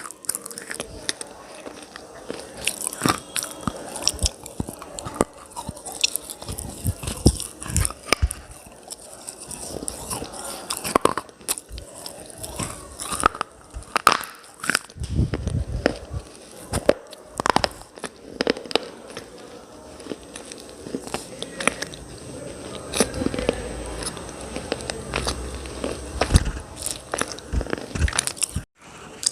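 Close-up crunching and chewing as someone bites into and grinds hard, brittle mineral pieces such as slate pencil and clay cubes: an irregular stream of sharp cracks and gritty crunches.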